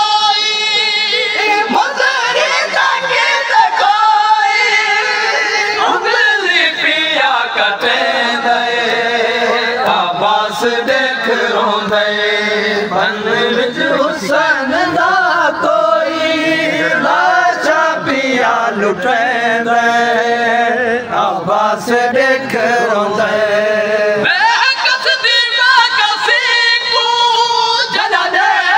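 Men's voices chanting a Saraiki noha, a Shia mourning lament, unaccompanied, in long wavering melodic lines whose pitch slides up and down.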